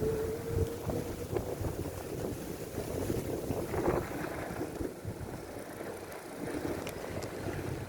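Wind buffeting the microphone while cycling through a snowstorm, over a steady low rumble, with a short steady whine in the first second.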